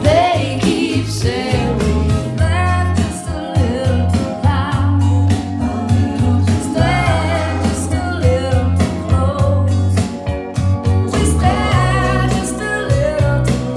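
A song with a singing voice over deep, sustained bass notes, played back through ELAC Debut 3.0 DB63 bookshelf speakers with a REL T9x subwoofer.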